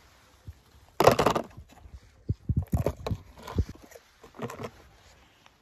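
A die-cast toy car dropped into an empty plastic basin, landing with a loud clatter about a second in, followed by a run of smaller knocks and rattles.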